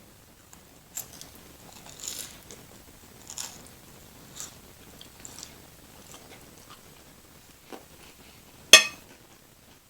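A person chewing and crunching food, with a crisp bite or crunch every second or so. One sharp, loud click near the end.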